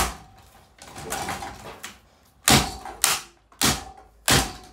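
Hard knocks on a Lanson ceiling fan as it is being smashed and seizes up: one at the start, then four more over the last two seconds, each about half a second apart.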